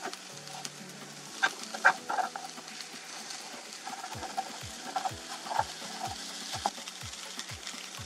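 Omelet and croquettes sizzling in a nonstick frying pan while a plastic slotted spatula scrapes and knocks against the pan, turning the omelet and cutting it in half. The sharpest scrapes come about one and a half to two seconds in. Background music with a soft beat plays underneath.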